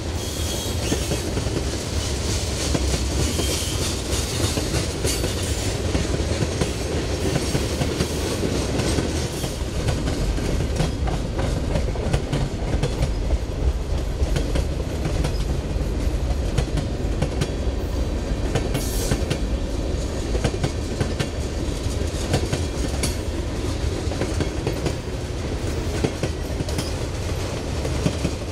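Freight train cars rolling past: a steady rumble of steel wheels with rapid clicking and clacking on the rails.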